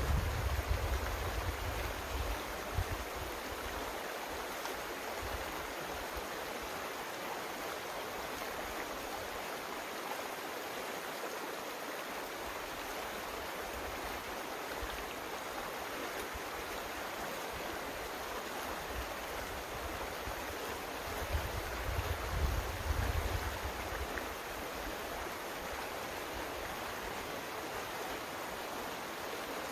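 Small creek running steadily, an even rush of flowing water. Brief low rumbles come at the start and again around twenty-two seconds in.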